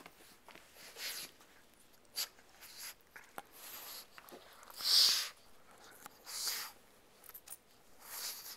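Pug breathing in short, noisy puffs right at the microphone, roughly every second and a half, the loudest about five seconds in, with a few small clicks between.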